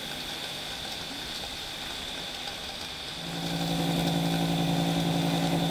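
Steam hissing from beneath the cylinder of a standing narrow-gauge steam locomotive. About three seconds in, a louder, steady low hum with overtones starts and holds.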